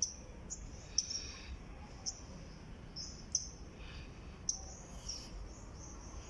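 A bird chirping repeatedly, short high calls coming about once a second, over a faint steady low background noise.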